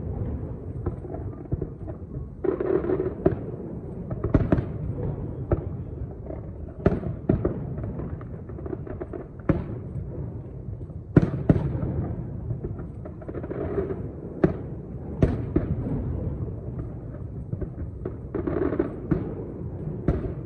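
Aerial fireworks shells bursting: an irregular string of sharp bangs, a loud one every second or two, over a continuous din of smaller explosions.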